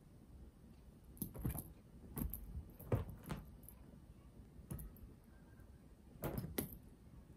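A cat pouncing and scrambling on a fabric sofa after a wand toy: a string of irregular soft thumps and scuffles as its paws land on the cushions, strongest about three seconds in and again a little after six seconds.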